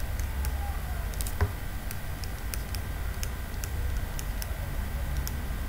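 Faint, scattered ticks of a stylus writing on a drawing tablet over a low steady hum, with one sharper tick about one and a half seconds in.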